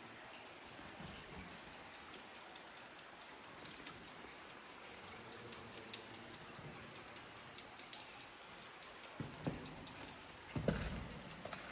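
Water dripping in a wet cave: many small drops falling from the ceiling formations, ticking onto water and rock over a faint steady hiss, the drops coming thicker after a few seconds. A few dull thumps near the end.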